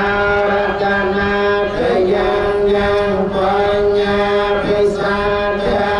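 Buddhist blessing chant: a group of voices chanting together on a steady, low monotone, with long held notes that shift only now and then.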